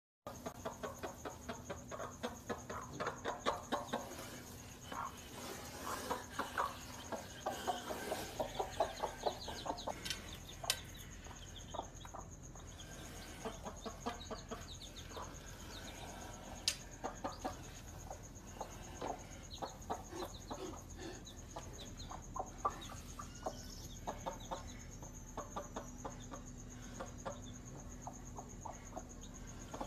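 A hen clucking over and over with her chicks cheeping, the calls coming thickest in the first ten seconds and more scattered after that.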